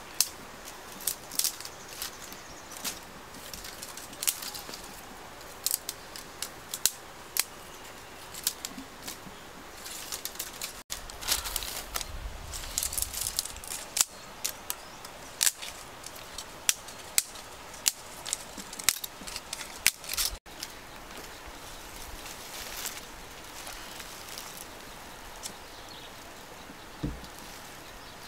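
Dry sticks and twigs snapping and clicking as they are handled, in irregular sharp cracks over a steady outdoor hiss, with a denser run of snaps and a low rumble about twelve seconds in.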